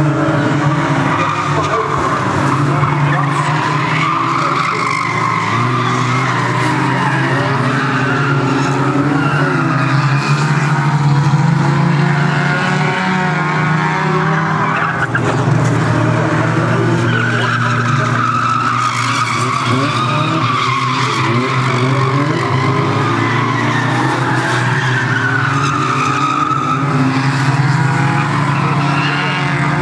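Several old hatchback race cars running round the oval together, their engines revving up and down, with tyres squealing and skidding as they slide through the bends.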